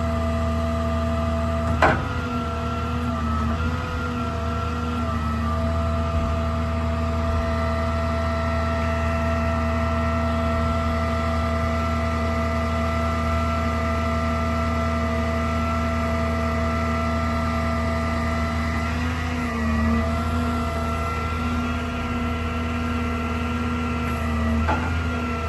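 6.6-litre Duramax diesel engine of a service truck running at a steady speed while it powers the crane's hydraulics. A sharp knock sounds about two seconds in, and the engine note dips briefly a few times as crane functions load it.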